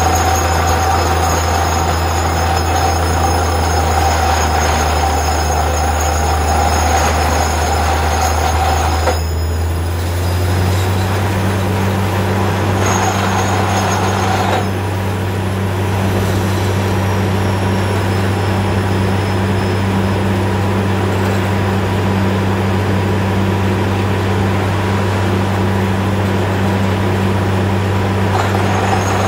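Truck-mounted borewell drilling rig running under load while drilling, its engine and compressor giving a loud, steady low drone. A high whine and hiss over it stop about nine seconds in and come back briefly a few seconds later, and the engine note steps up slightly around ten seconds.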